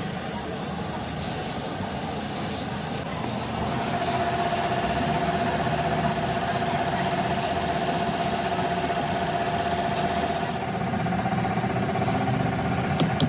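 Steady machine running, with a steady hum-like tone coming in about four seconds in, and scattered sharp clicks and taps.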